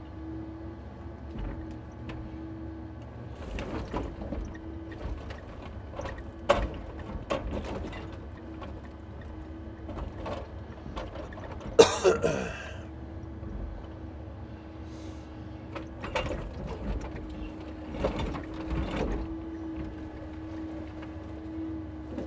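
Timber truck's hydraulic loader crane at work loading birch logs. A steady hum from the truck's engine and hydraulics runs throughout, with logs knocking and clunking now and then; the loudest knock is about twelve seconds in.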